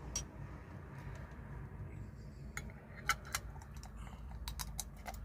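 Scattered sharp clicks and light taps, most of them in the second half, over a low steady hum.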